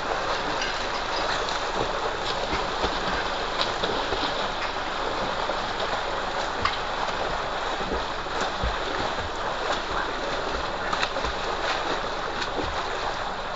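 Steady rush of water gushing from a pipe into a concrete tank, with repeated short splashes as people thrash about in the water.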